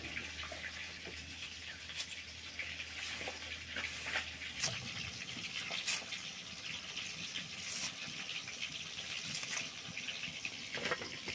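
Red onion being sliced on a boti, a curved blade fixed upright: irregular short, sharp cuts over a steady hiss.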